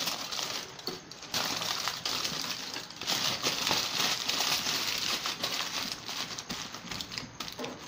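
Aluminium foil crinkling and crackling as hands fold it over and press it closed around marinated chicken pieces, with a short lull about a second in.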